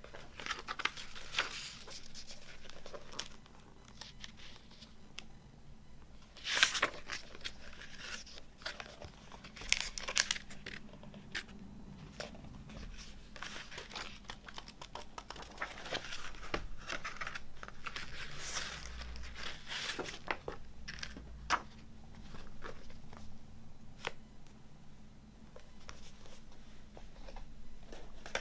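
Packaging being torn open and crinkled by hand, in irregular crackly bursts with sharp clicks, loudest about six and a half and ten seconds in.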